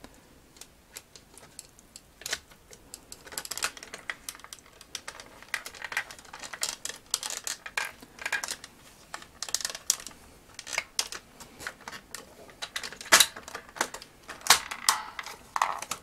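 Hard plastic parts of a vintage Kenner M.A.S.K. Switchblade toy clicking and knocking together as its top and bottom body halves are fitted over each other by hand. The clicks and taps come irregularly and grow busier a few seconds in.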